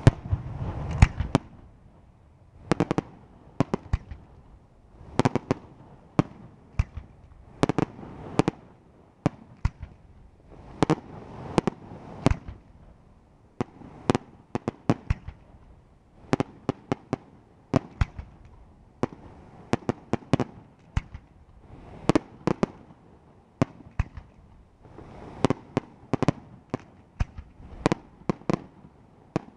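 Aerial firework shells bursting in quick succession during a professional display. Sharp bangs come in clusters every second or two, with a low rumble between them.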